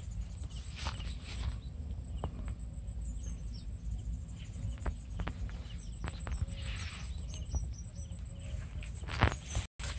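Outdoor rural ambience: a steady high insect drone with scattered short bird chirps over a low wind rumble on the microphone, broken by a few faint clicks and a couple of sharper knocks near the end.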